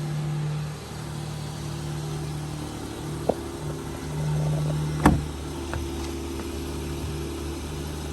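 Car running on the road, heard as a steady low engine and road hum, with a small click and then a louder sharp knock about five seconds in.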